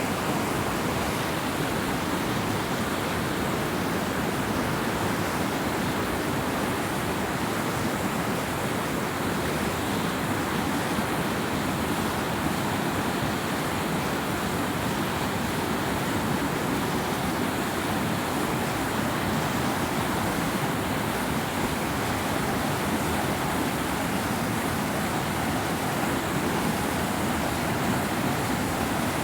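River water rushing in a steady, even roar of noise with no breaks.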